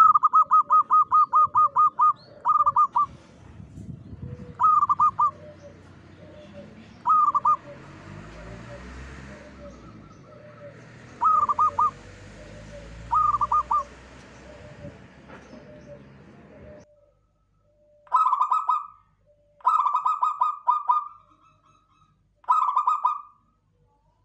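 Zebra doves (local perkutut) cooing: a rapid staccato run of about ten coos, then short phrases of three or four quick coos every couple of seconds, with fainter lower coos repeating in the background. After an abrupt change to a quieter background, three more cooing phrases follow.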